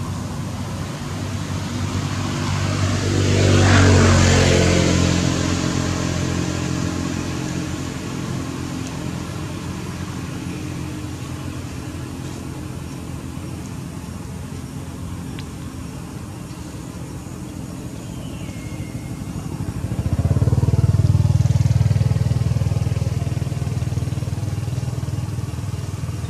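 Motor vehicles passing by twice, over a steady low engine hum. Each pass swells and fades, the first about four seconds in with a falling engine note, the second about twenty seconds in.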